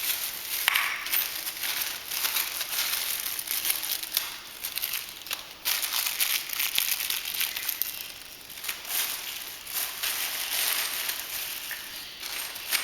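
Continuous irregular rustling and crackling, full of small clicks, as of objects being handled and rummaged through.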